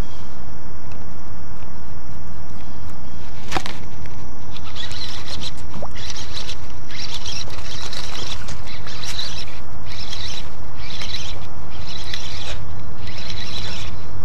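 Steady low rumble, then a sharp knock about three and a half seconds in, followed by rhythmic raspy bursts roughly once a second from a baitcasting reel being cranked while fighting a hooked largemouth bass.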